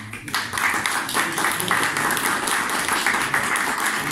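A small group of people applauding, a steady dense patter of hand claps.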